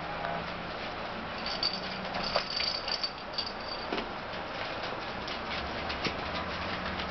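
Six-week-old Bedlington terrier puppies moving about and playing, their claws tapping and scuffling on a parquet floor with small knocks and rattles of toys.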